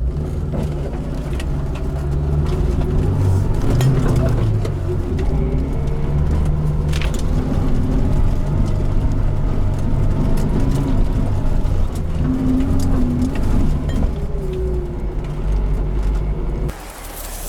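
Lada Niva's engine running under load while driving off-road, its revs rising and falling. The sound cuts off abruptly near the end.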